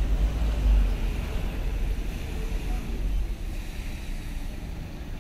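Street traffic on wet asphalt: passing cars' engines and the hiss of tyres on the wet road, over a low rumble that is strongest about a second in.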